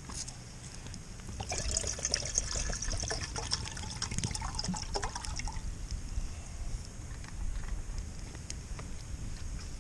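Liquid being poured, trickling and splashing for about four seconds, over a steady low rumble.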